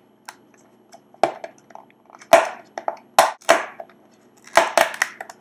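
A small retail box's packaging being opened by hand: a series of about six sharp crinkling, crackling tears. The loudest comes a little over two seconds in, and two close pairs follow.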